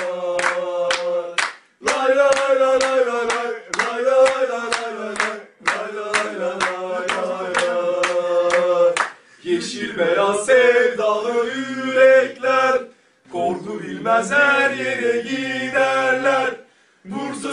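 Bursaspor supporters' terrace chant: a group of men singing in unison over a sharp beat about two to three times a second, broken by short pauses between lines.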